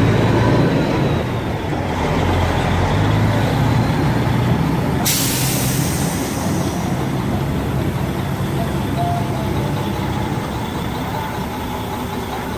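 Semi-truck diesel engine running steadily, with a sharp burst of air hissing from the air system about five seconds in.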